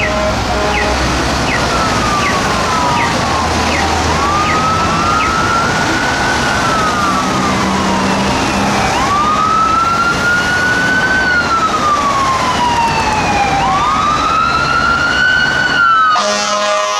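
Fire engine sirens wailing, slowly rising and falling every four to five seconds, two sweeps slightly out of step, with short quick chirps in the first few seconds. Near the end an air horn blasts.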